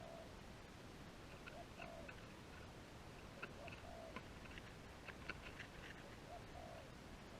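Dove cooing faintly, one soft low coo about every two seconds. Short faint high clicks are scattered through the middle.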